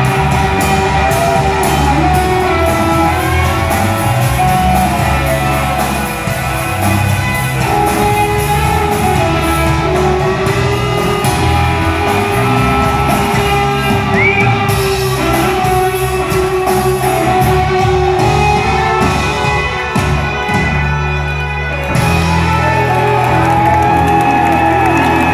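Live rock band playing loudly: drum kit, electric bass and electric guitar, heard as a full band mix in a large hall. The band drops back briefly about twenty seconds in, then comes back in full.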